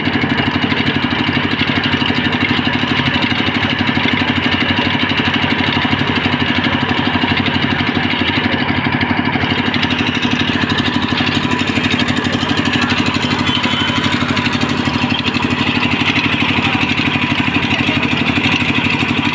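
Large belt-driven band sawmill running steadily with its drive engine as the blade cuts through a tree log, an even mechanical hum with no pauses.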